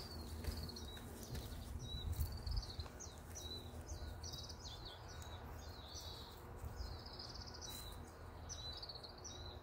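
Songbirds chirping and trilling in a quick, continuous run of short high phrases, over a faint low rumble.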